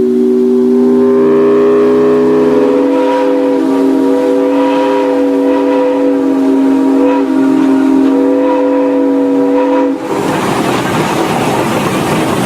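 Steam locomotive whistle blowing one long, steady chord of several notes at once. It cuts off abruptly about ten seconds in, and a steady rushing noise follows.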